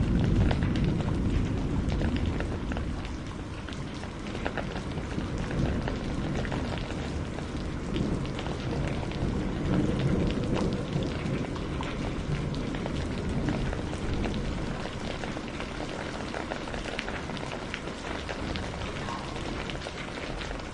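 Steady rain with many small drops pattering on a surface, and a low rumble that is loudest at the start and eases off over the first few seconds.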